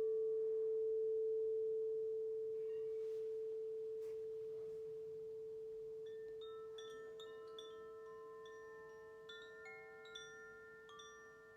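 A single pure, low-pitched meditation tone, struck just before, rings on and slowly fades. From about six seconds in, wind chimes start jingling gently over it with several high, overlapping notes.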